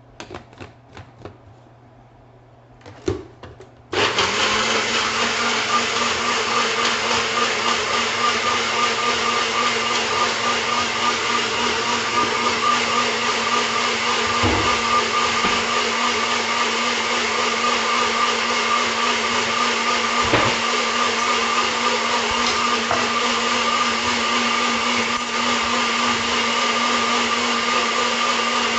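A few clicks and knocks as the blender is set up, then the countertop blender's motor starts about four seconds in and runs steadily, puréeing okra with water into a slimy egg substitute. There are a couple of short knocks partway through.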